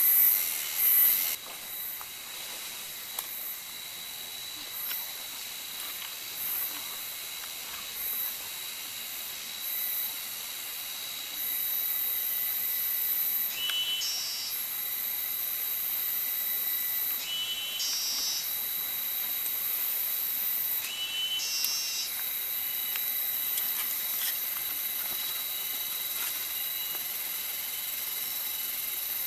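Tropical forest insect chorus: a steady high hissing buzz with a thin whining tone, swelling and fading in waves. Three short chirping calls stand out, about four seconds apart, near the middle.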